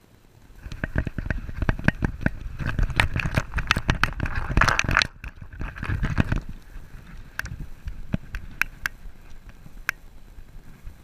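A dog sprinting in a burst of zoomies with a camera harnessed to its back: a fast, irregular run of knocks and thuds from the jostled camera mount and pounding paws over a low rumble of wind, from about a second in until about six seconds in. It then eases to a few scattered knocks as the dog slows.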